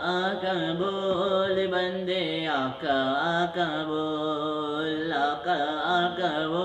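A young man's solo voice singing a naat unaccompanied into a handheld microphone, drawing out long wavering notes with no clear words, as the opening of the recitation.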